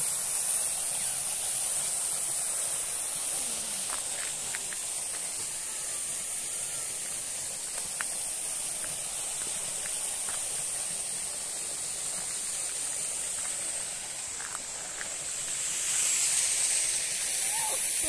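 Small waterfall's falling water making a steady, high hiss, with a few faint ticks; it swells a little near the end.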